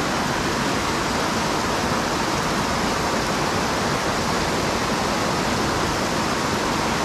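Small mountain creek pouring over low cascades into a pool: a steady rush of splashing water.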